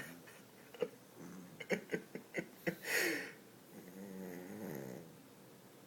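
Pug snoring in its sleep: a run of short snuffles and snorts, a louder breath near the middle, then one longer, wavering snore.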